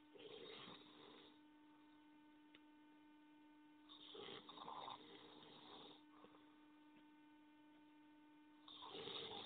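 A person snoring faintly: three snoring breaths, each a second or two long and about four and a half seconds apart, over a steady electrical hum.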